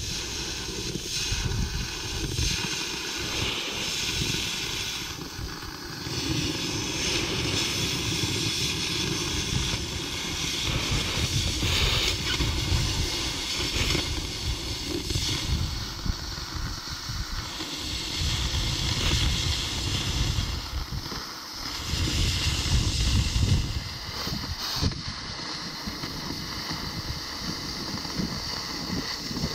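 Oxy-fuel hand cutting torch cutting through steel plate: a steady hiss from the cutting flame and oxygen jet, swelling and easing a little as the cut goes on, with some wind rumble on the microphone.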